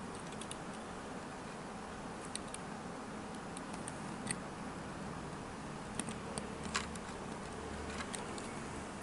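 Light, irregular clicks and taps of a small die-cast model car being handled in the fingers and set down on a table, over a steady hiss.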